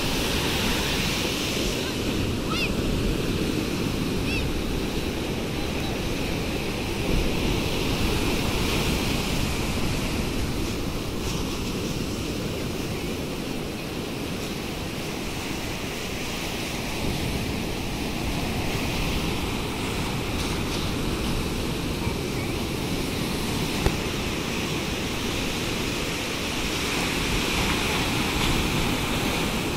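Sea surf breaking and washing up a sandy shore: a continuous rushing wash of waves that swells and eases slightly.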